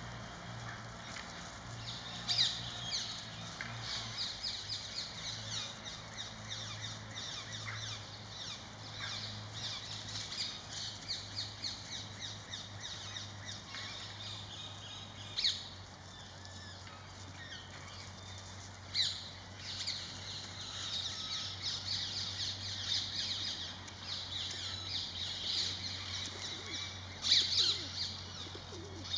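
Many birds chirping and calling in a dense, busy chorus of quick high chirps, with a few louder sharp calls standing out, about fifteen and nineteen seconds in and near the end.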